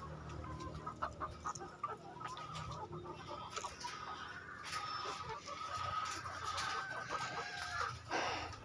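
A flock of Lohmann layer hens clucking and calling, with long held calls through the second half.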